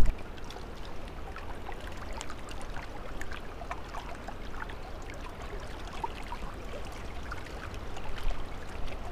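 Small waves lapping and trickling among the shoreline rocks, with faint scattered ticks.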